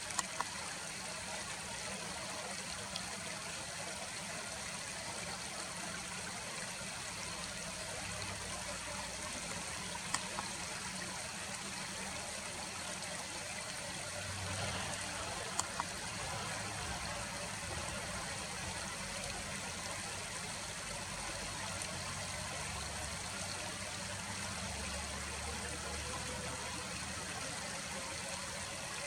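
Steady rushing of a stream's flowing water, with a couple of faint clicks.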